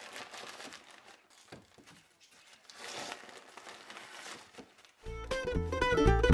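Faint rustling and scraping noises, then banjo-led bluegrass music starts suddenly about five seconds in.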